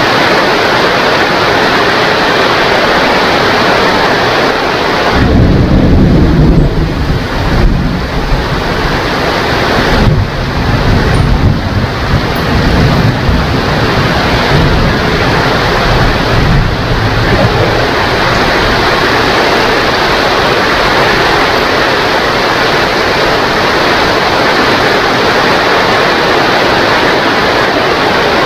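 Steady rain with a long roll of thunder that begins about five seconds in, swells with a couple of sharper cracks, and rumbles away over the next dozen seconds.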